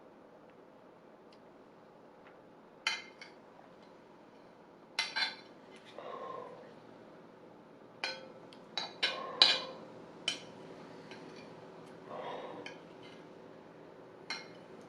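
Cutlery clinking against a plate in a scatter of sharp clinks, several in quick succession near the middle, with a few softer, duller sounds in between.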